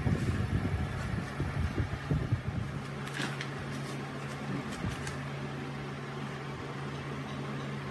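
Steady low mechanical hum, like a fan or motor running. Over it come light clicks and knocks of metal engine parts being handled during the first few seconds.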